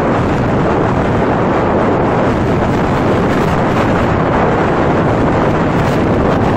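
Wind buffeting the microphone over a motorcycle engine running steadily on the move; a loud, even rush with no distinct engine note standing out.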